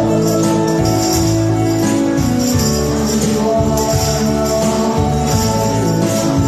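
Karaoke backing music for a Taiwanese song, with a steady beat and jingling tambourine-like percussion, while a man sings along through a handheld microphone over the PA.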